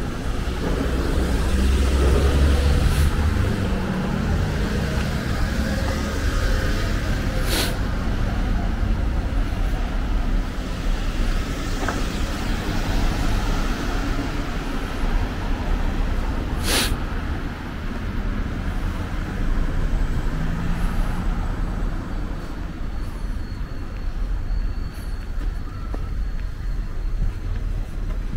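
Road traffic going past: a steady rumble of engines and tyres, with a vehicle passing close about two seconds in and two short, sharp hisses about eight and seventeen seconds in.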